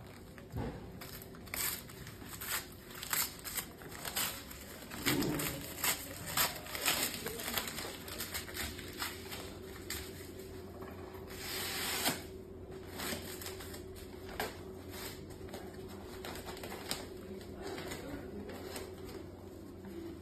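Paper wrapper of a gauze roll crinkling and rustling as it is handled and opened: irregular sharp crackles, with a longer rustle a little past the middle.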